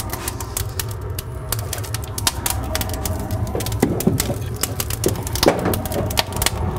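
Kindling and paper fire crackling in the firebox of a Solarfocus Therminator II log boiler, with rapid, irregular snaps over a steady low roar. The fire has caught well.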